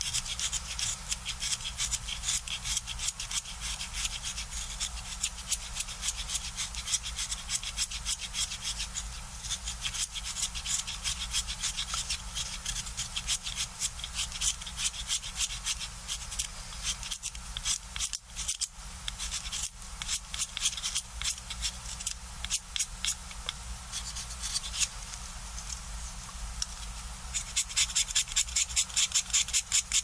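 Craft knife blade shaving the wood of a coloured pencil by hand: quick, even scraping strokes, about four a second. There is a short break in the rhythm near the middle, and a faster, crisper run of strokes near the end.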